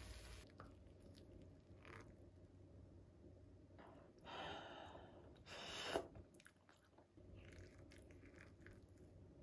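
Quiet eating sounds: a wooden spoon scooping through a cheese-topped stir-fry in a ceramic dish, with faint small ticks and two short hissing rushes about four and five and a half seconds in.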